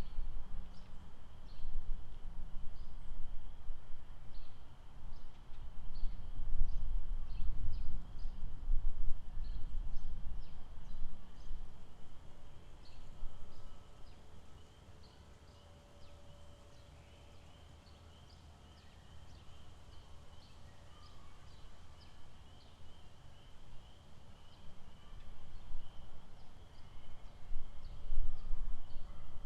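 Lakeside outdoor ambience. A low gusty rumble of wind on the microphone swells and fades, with a steady high-pitched chirring and many short bird chirps over it.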